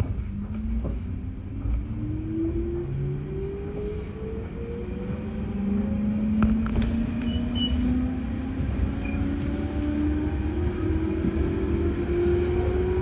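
JR 211 series electric train's DC traction motors and gearing whining as the train pulls away from a standstill, the tones rising steadily in pitch as it picks up speed to about 40 km/h, over a constant running rumble, heard from the cab. A few clicks sound near the start, and the sound grows louder about halfway through.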